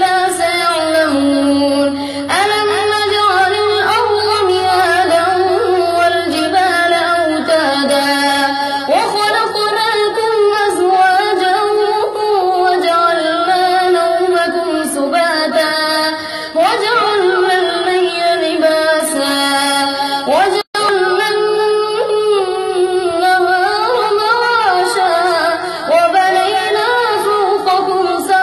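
A boy's high voice reciting the Quran in melodic tajweed style, with long held notes and ornamented rising and falling glides. The sound drops out for an instant about twenty seconds in.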